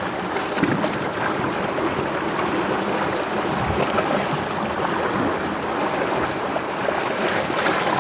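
Sea waves washing, a steady rush of water noise that swells a little now and then.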